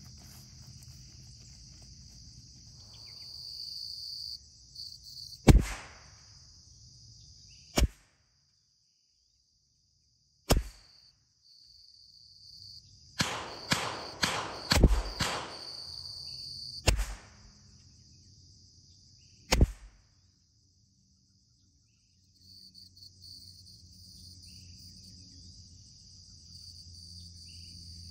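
Rifle shots from a .22 LR bolt-action rifle firing Eley Contact ammunition: sharp single reports a couple of seconds apart, with a quicker run of several cracks in the middle. These are the cold-bore and sight-in shots. Crickets drone steadily underneath.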